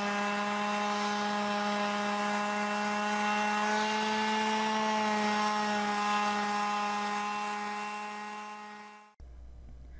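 Porter-Cable model 380 quarter-sheet palm orbital sander running steadily against a weathered wooden deck rail, a constant hum with the rasp of sandpaper on wood. It fades away over the last couple of seconds and cuts off about nine seconds in.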